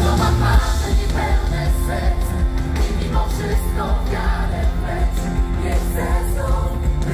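Live pop band playing through a concert PA, with drums, bass and keyboards under a steady beat and several voices singing.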